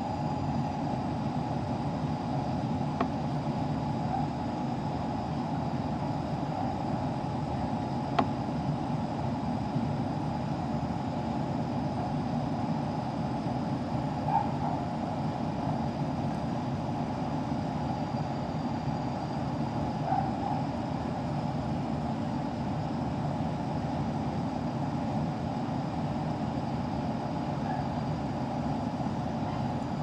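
Central air-conditioning system running steadily and cooling normally: a constant mechanical hum with a steady whine, and a sharp click about eight seconds in.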